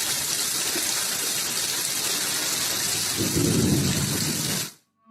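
A steady, even rushing noise like heavy rain, with a deeper rumble joining about three seconds in; it cuts off abruptly shortly before the end.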